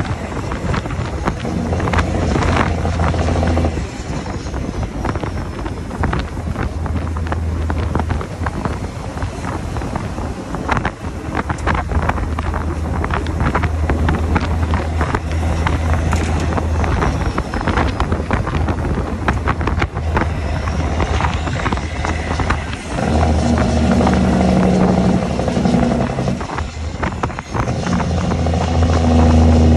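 Straight-piped Cat C15 diesel semi truck engine running loud under way, its deep exhaust note dropping off briefly a few times and coming back stronger, with wind rushing over the microphone.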